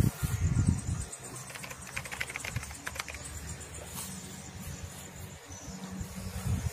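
Footsteps and rustling through tall grass, loudest in the first second, with insects chirping steadily and a rapid run of clicks a couple of seconds in.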